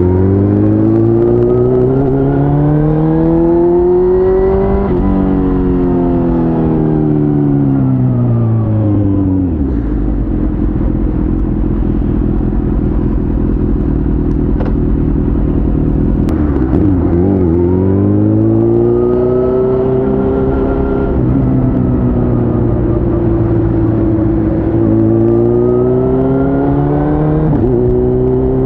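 Suzuki GSX-R1000's inline-four engine heard from the rider's seat. It revs up for several seconds, winds slowly down to a steady low idle, then pulls away again with two more rising runs, and drops quickly once near the end.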